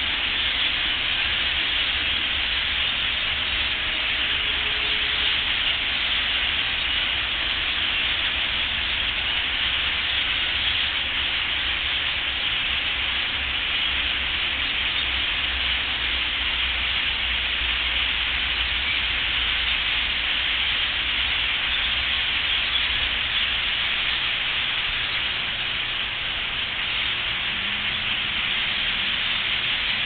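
A huge flock of birds flying in to roost, their thousands of calls blending into one steady, dense din with no single call standing out, and a low rumble underneath.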